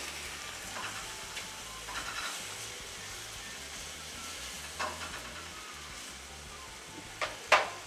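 Sliced mushrooms and red onion sizzling steadily in a hot nonstick frying pan, with a spatula stirring and scraping them around the pan. Two sharp knocks come near the end.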